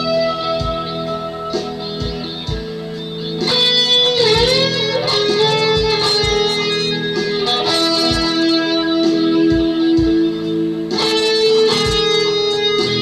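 Electric guitar playing a slow lead line of long held notes with bends and vibrato, with a wavering pitch dive and return about four seconds in. A steady low thump about once a second runs underneath.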